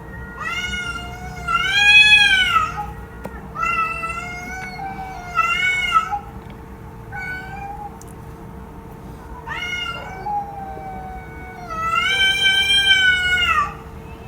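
Cat meowing repeatedly: about seven meows of varying length, each rising then falling in pitch. The loudest comes about two seconds in and the longest near the end.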